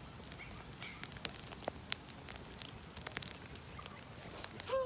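Wood fire crackling in a campfire pit, with irregular sharp snaps throughout. Near the end comes a short voice-like sound that bends down in pitch.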